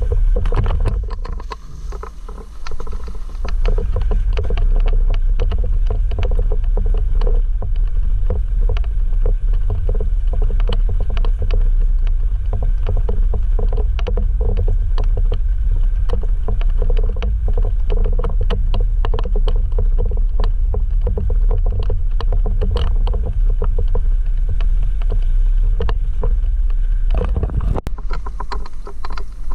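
Jeep JL Rubicon driving over a rough, rocky off-road trail. There is a steady low rumble from the vehicle, with constant irregular knocks and rattles as it jolts over the ground. The sound eases off near the end.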